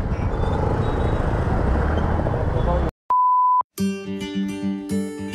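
Busy city street traffic noise, which cuts off suddenly about three seconds in. A short, steady, high beep follows, then strummed acoustic guitar intro music begins.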